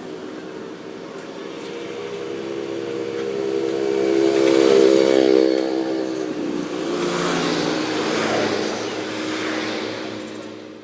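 Diesel engine of heavy earthmoving machinery running under varying load, building to a peak about halfway through, dipping, then swelling and easing off again.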